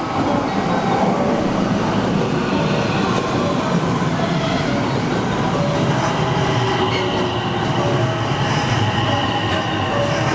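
JR electric commuter train moving along the station platform, a loud continuous rumble of wheels on rail. A thin high steady tone joins in about six seconds in.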